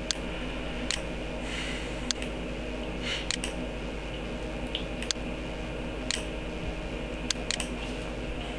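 Computer mouse clicking: about ten short, sharp single clicks at uneven intervals, over a steady electrical hum.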